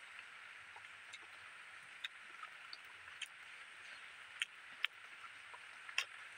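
Close-up eating sounds of a man eating by hand from a banana leaf: chewing with short, sharp mouth smacks and clicks, about half a dozen, the loudest a little after four seconds in and again near the end, over a steady high hiss.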